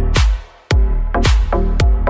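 Electronic dance music with a heavy kick drum on a steady beat, dropping out briefly about half a second in.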